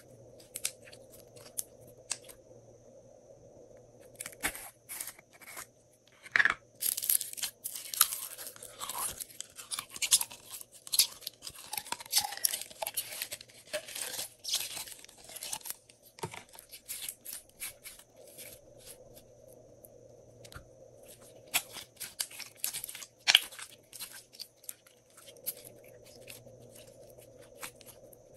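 Glossy slime being stretched, squeezed out of a plastic cup and pressed by hand: sticky clicks, pops and crackles. They come thickest through the middle and again in a short flurry later.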